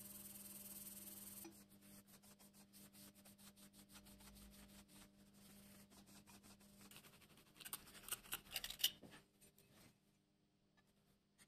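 Air-bearing pad being lapped by hand on abrasive paper over a granite surface plate: a steady scraping hiss that stops about a second and a half in. Softer rubbing strokes follow, with a short run of louder scratchy strokes around eight seconds in.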